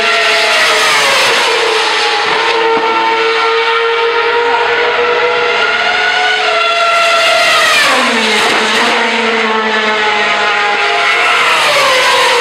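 Formula One cars' 2.4-litre V8 engines running at very high revs as they pass at speed, the pitch falling each time a car goes by, about three times.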